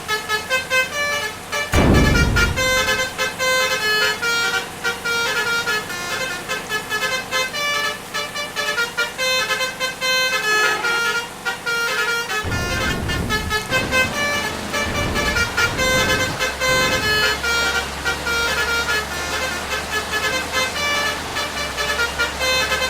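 Basuri melody horn ('om telolet' horn) playing a quick, repeating tune of short stepped notes, with a vehicle's deep engine rumble about two seconds in and again around the middle.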